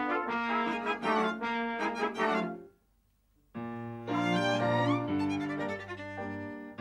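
Instrumental music score with violin. It drops out for under a second, a little under three seconds in, then comes back with a long held low note beneath.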